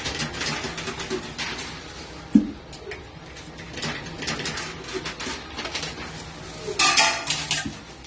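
Coins clinking and clattering as they are fed one after another into a coin pusher arcade machine and drop down inside it. There is a sharper knock about two and a half seconds in and a louder clatter of coins near the end.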